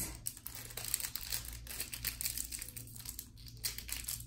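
Small plastic bag of diamond-painting drills crinkling as it is handled and worked at to open it.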